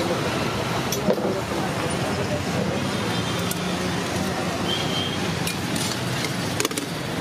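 Steady street traffic noise with a low engine hum. A few sharp clinks of steel serving ware stand out, the clearest about a second in and near the end.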